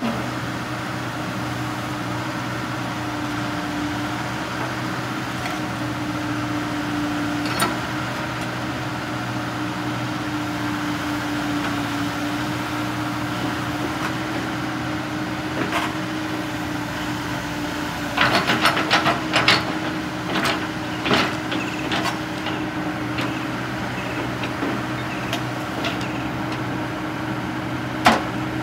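Komatsu PC60-8 excavator's 3.2 L four-cylinder diesel running steadily while the boom and bucket are worked, with a tone that wavers in pitch over the engine hum. A few sharp clicks, a run of knocks and clanks about two-thirds of the way in, and one sharp knock near the end.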